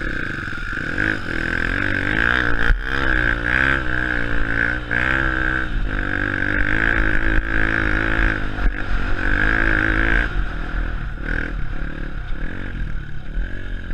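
Honda CRF150F dirt bike's four-stroke single-cylinder engine running under a rider, its revs rising and falling with the throttle, with a knock or two from the bike over rough ground.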